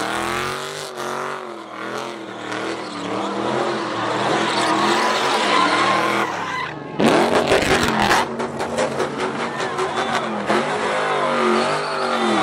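Car engine revving up and down repeatedly while its rear tires spin and skid in circles. There is a sudden louder surge about seven seconds in.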